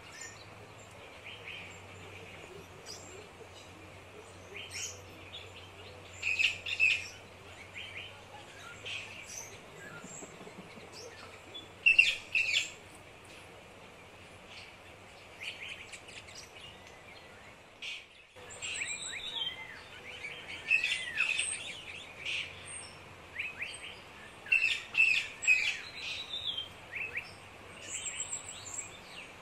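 Small birds chirping in repeated bursts of short high calls, some as quick gliding whistles, over a faint low hum.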